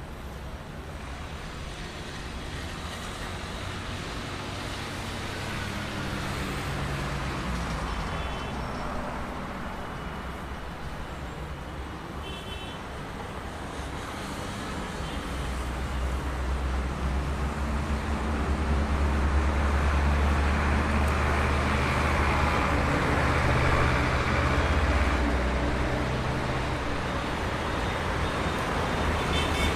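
Road traffic in a jam: a continuous wash of idling and slowly moving car and truck engines, with a heavier low engine drone building about halfway through and easing off near the end. Brief faint high tones, such as distant horns or brakes, come and go.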